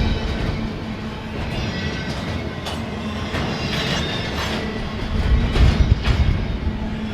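Slow intermodal freight train rolling past: steady wheel-on-rail rumble with irregular clicks of wheels over rail joints, swelling louder about five to six seconds in.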